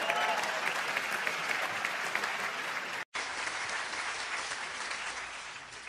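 Theatre audience applauding, dense clapping that drops out abruptly about three seconds in, then another audience's applause that starts and gradually fades away.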